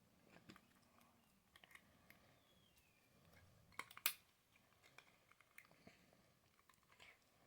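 Near silence with scattered faint small clicks and light handling noises, and one sharper click about four seconds in.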